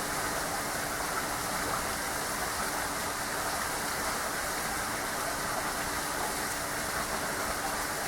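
Steady, even background hiss with a faint low hum underneath, unchanging throughout.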